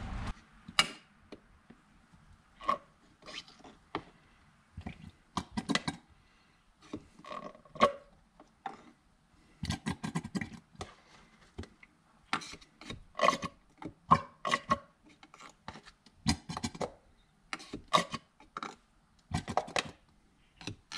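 Turkey baster sucking leftover hydrostatic oil out of a Tuff Torq K46 transaxle housing: many short, irregular sucking and squirting noises as the bulb is squeezed and released.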